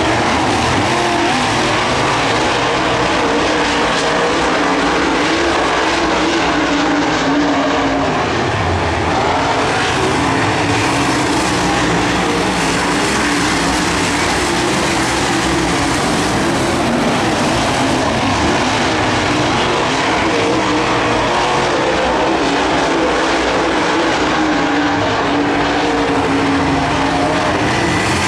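Several UMP dirt-track modifieds' V8 engines running around the oval together, their pitch rising and falling as they lap.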